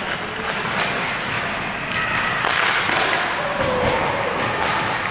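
Ice hockey game in play: skates scraping the ice with a few sharp stick-and-puck knocks and thuds, and players shouting.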